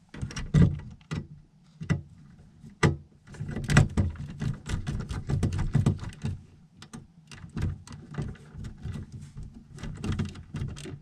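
Hands working on furnace control-board wiring: irregular clicks, taps and light rattles of wires, connectors and tools, with rustling handling noise between them.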